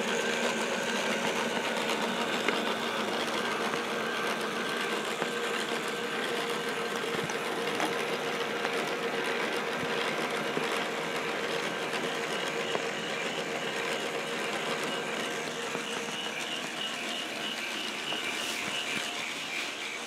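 The plastic gear train of a motor-driven K'NEX ball machine running steadily, a continuous mechanical whir of meshing plastic gears.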